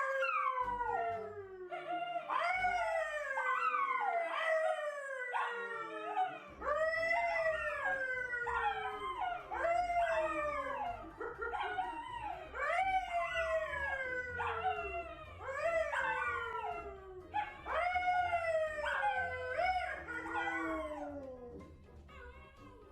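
A pet animal crying out over and over in drawn-out howling cries, each rising and then falling in pitch, about one a second, stopping near the end.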